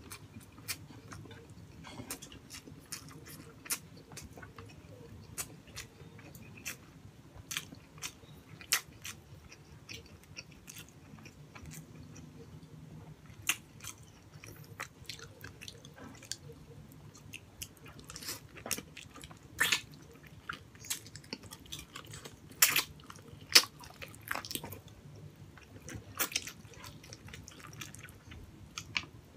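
A person chewing and eating braised pork hock and rice by hand: wet mouth smacks and clicks, some louder, in a cluster about two-thirds of the way through.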